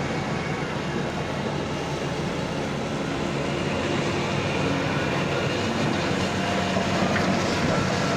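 JCB excavator's diesel engine running steadily while it works, with a dense mechanical clatter.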